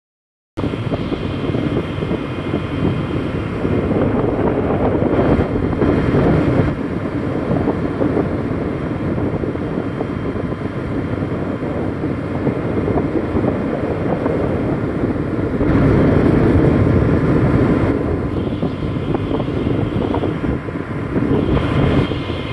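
Loud, steady rush of wind and sea noise on a ship's deck, buffeting the microphone with a low rumble underneath. It starts suddenly about half a second in and swells twice, around five to seven seconds and again around sixteen to eighteen seconds.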